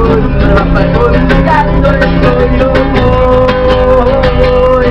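A man singing to his own strummed classical acoustic guitar, holding one long wavering note through the second half.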